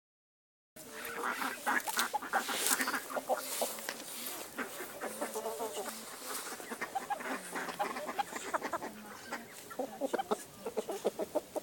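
Flock of Kalimero broiler chickens clucking, many short calls from several birds overlapping, starting just under a second in.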